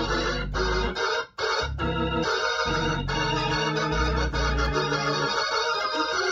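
Hammond B2 tonewheel organ playing sustained chords over a moving bass line through a Leslie speaker, a rebuilt 122 amplifier driving a 910 cabinet, with the horn rotor turning. The chords break off briefly about a second in, then carry on.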